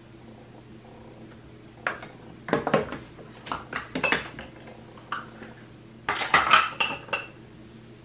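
Hard makeup containers and tools clinking and clattering as they are picked up and set down, with short ringing tones after some knocks. The sounds come in two clusters, from about two to five seconds in and again around six to seven seconds, over a steady low hum.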